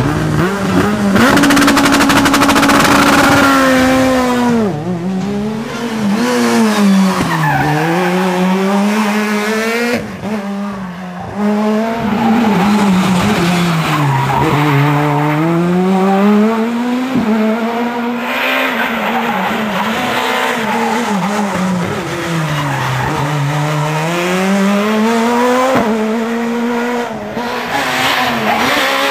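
Škoda Fabia S2000 rally car's 2.0-litre four-cylinder engine at full race pace. The revs climb and fall again and again through the gears and on braking into corners, heard across several roadside passes.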